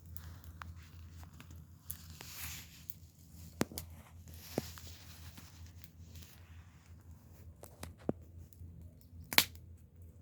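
Wood fire crackling, with scattered pops and one loud sharp pop near the end.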